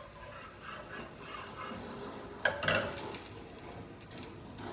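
Kitchen cookware and utensils being handled around a frying pan on a gas stove: light clattering, with one sharp clank about two and a half seconds in.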